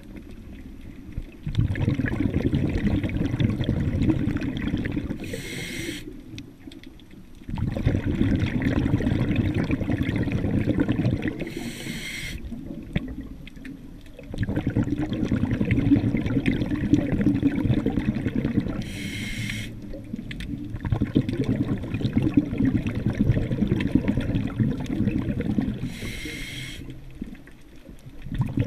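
Scuba diver breathing through a regulator underwater. Four short hissing inhalations come about every six to seven seconds, and each is followed by several seconds of rumbling, bubbling exhaled air.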